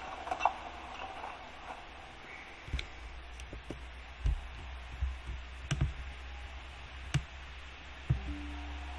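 Scattered clicks and dull knocks from a computer mouse and keyboard being handled, over a low steady hum.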